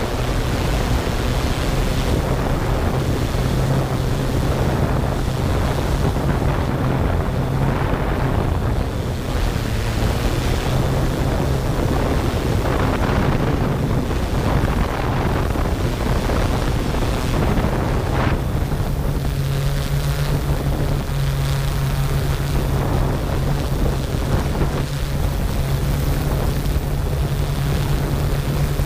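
Yuneec Q500 quadcopter's motors and propellers humming steadily in flight, under a rush of wind on the microphone. The hum steps up slightly in pitch about two-thirds of the way through.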